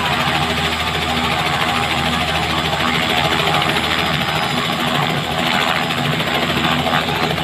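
Robinson R66 helicopter running steadily on the ground, its Rolls-Royce RR300 turboshaft engine and turning main rotor making a continuous loud whine and hum.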